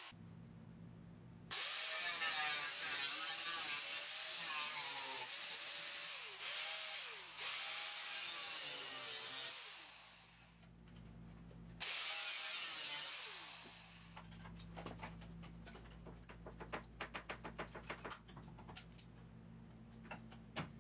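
Angle grinder with a cut-off disc cutting sheet steel in two runs, a long one and a short one, its pitch sagging and recovering as the disc bites into the rusty inner sill. Faint irregular clicks and taps follow near the end.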